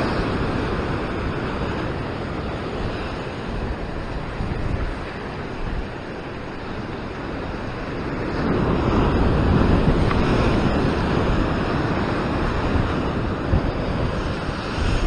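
Ocean surf breaking against rocks and white water washing over them, with wind buffeting the microphone. The rush swells louder a little over halfway through as a bigger wave comes in.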